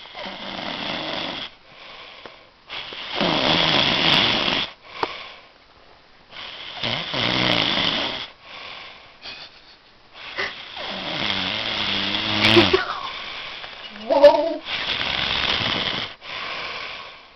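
A man snoring heavily in sleep, one loud breath about every three to four seconds, several with a low rattling buzz, and a short squeaky snort near the end.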